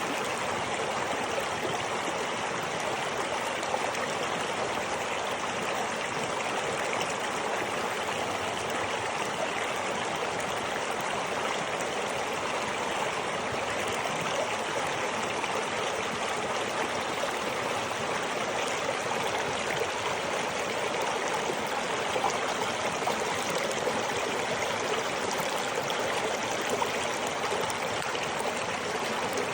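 River water flowing, a steady rushing wash with no breaks or changes.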